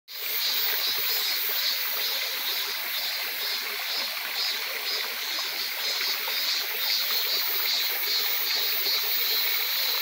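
Shallow mountain stream trickling over rocks, with cicadas singing in a steady pulsing chorus over the water.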